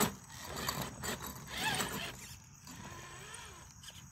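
Traxxas TRX-4 Blazer RC crawler's electric motor whining in short bursts as the truck is throttled on and off while climbing rocks, with a click of the chassis or tyres on stone at the start. The pitch of the whine rises and falls with each burst.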